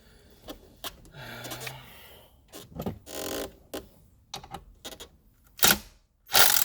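Handling noises of a car seat being tilted and shifted: scattered clicks and knocks, with two louder rustling scrapes near the end.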